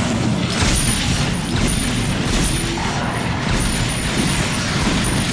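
Loud, dense film soundtrack of steady grinding, machine-like noise, with a faint high-pitched pulse repeating about twice a second.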